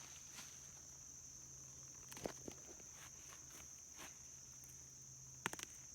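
Faint, steady high-pitched drone of crickets, with a few soft clicks and snaps from handling the plants and soil, the clearest about two seconds in and near the end.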